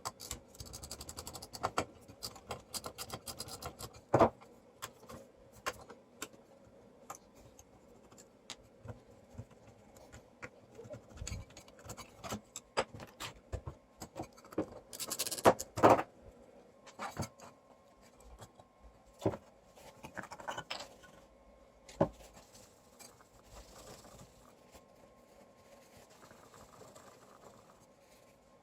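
Handling noise on a workbench: scattered clicks, taps and scrapes of tools and parts being moved, with a louder scraping flurry about halfway through. A faint steady tone comes in just after the middle.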